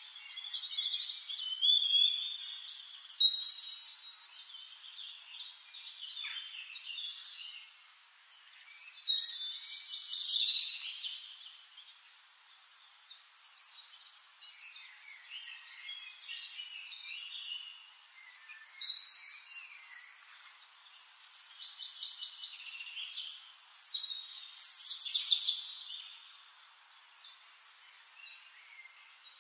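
Birds singing and chirping in quick trills and short whistles, with several louder bouts of song and quieter chirping between.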